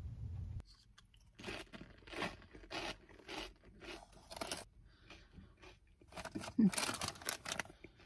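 Crunchy onion-ring snack chips being chewed, a crunch about every half second with quiet between. The crunches and crackles come thicker near the end. A low rumble cuts off less than a second in.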